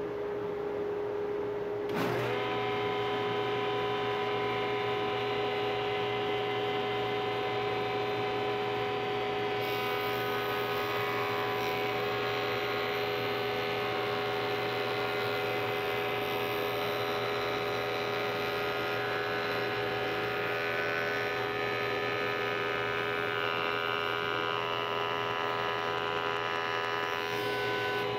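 Woodworking jointer running with a steady electric-motor hum. From about ten seconds in, the hiss of the spinning cutterhead planing wood joins it as glued-up strips are fed slowly across the knives to true their edge grain.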